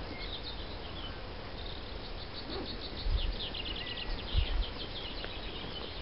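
Pond-side outdoor ambience: a high, rapid trill of short chirps starting about a second and a half in, with a couple of low wind thumps on the microphone.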